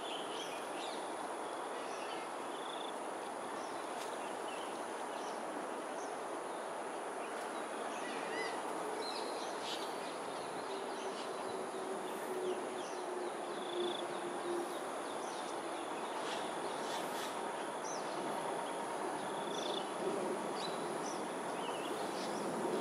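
Outdoor ambience: a steady wash of background noise under a high, steady insect buzz, with scattered short bird chirps throughout. A low, steady hum comes in for a few seconds midway.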